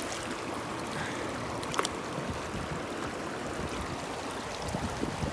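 Shallow stream running steadily over a cobble bed, with a hand splashing into the water to pick up a rock. One short sharp click about two seconds in.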